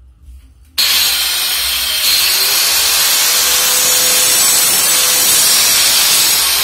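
Electric angle grinder cutting into a plastered brick wall to chase a groove for a water pipe. The loud grinding starts abruptly about a second in and holds steady.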